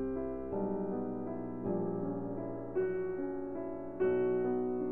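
Background music: slow, gentle piano, with a new chord or note struck about once a second.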